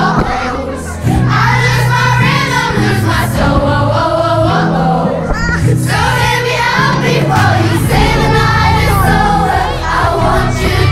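Music: a song with singing over a steady bass line, with a brief drop in level about a second in.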